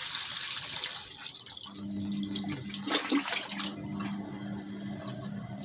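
Water being poured from a bucket into a front-loading washing machine, splashing and filling, to top it up for the final rinse. About two seconds in, a steady low hum starts under the water sound.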